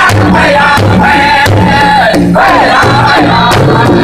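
A powwow drum group of men singing in loud, high unison voices while beating a large shared drum together in a steady, even rhythm.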